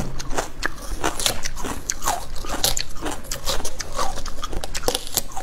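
Watermelon rind being torn off by hand, cracking and crunching in a rapid, irregular series of crisp snaps.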